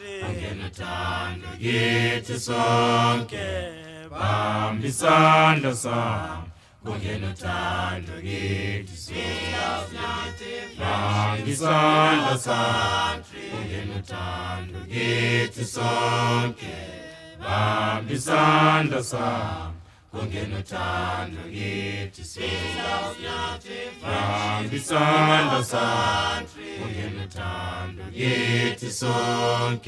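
Background music: an a cappella choir singing a song in phrases that rise and fall, with short breaks between them.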